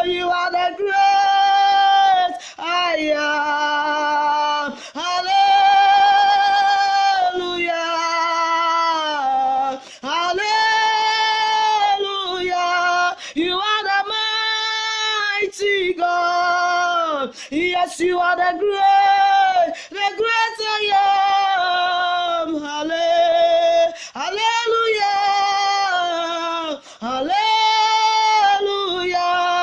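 A woman singing a worship song solo, holding long notes in phrases of a second or two with brief breaks between them.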